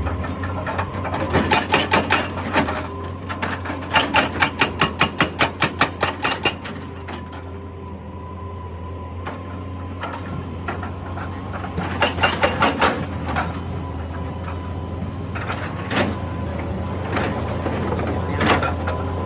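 Excavator's hydraulic rock breaker hammering on rock in three bursts of rapid blows, about five a second, with a few single knocks near the end. The excavator's diesel engine runs steadily underneath.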